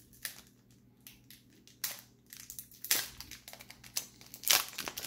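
The foil wrapper of a Leaf baseball card pack crinkling in irregular bursts as it is torn open by hand. The loudest crackles come about three and four and a half seconds in.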